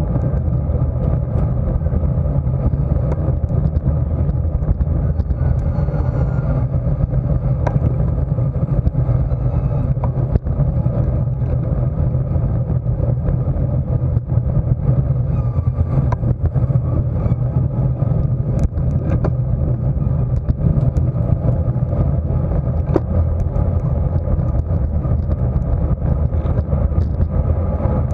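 Steady wind rush over the microphone of a camera on a road bike at racing speed, with rolling tyre and road noise underneath and a few light clicks.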